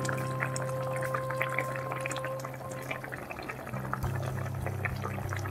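Thin hilsa fish curry (ilish tel jhol) boiling in a kadai, with a steady patter of small bubbles popping.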